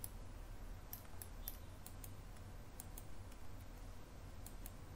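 Faint clicks of a computer mouse and keyboard keys, a few around one to two seconds in and a couple more near the end, over a low steady hum.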